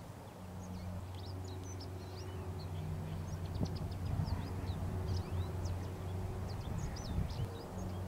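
Many small birds chirping, short quick high calls overlapping throughout, over a steady low rumble.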